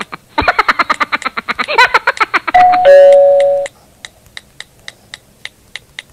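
Doorbell ding-dong sound effect: two chime notes, high then low, the loudest sound, coming after about two seconds of rapid pulsing chatter. Soft even ticking follows, about three ticks a second.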